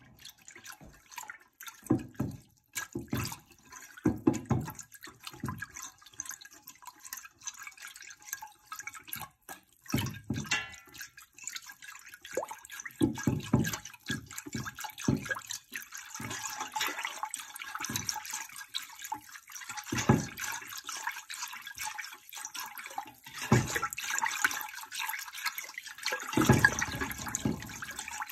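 Water sloshing and splashing in a stainless steel pot as a wire whisk stirs in red jelly powder, with irregular dull knocks against the pot. The splashing grows steadier about halfway through.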